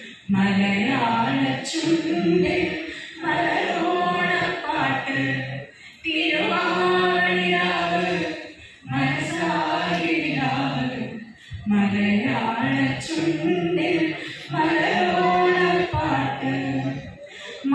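A mixed group of men and women singing a song together, unaccompanied, in long held phrases broken by brief pauses for breath.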